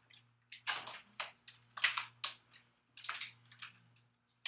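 Short rustles and clicks of paper cards and small letter tiles being handled, about half a dozen in a few seconds, over a faint steady hum.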